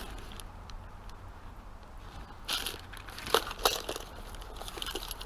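Fishing gear being rummaged through by hand: rustling of the bag and items, with scattered light clicks and knocks of tackle and containers.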